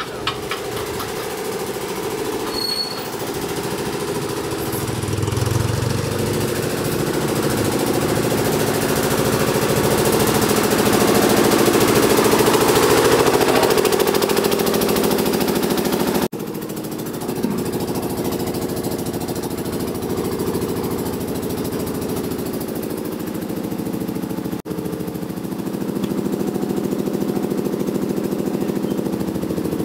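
Small stationary engine running steadily with an even mechanical drone, broken by two brief dips.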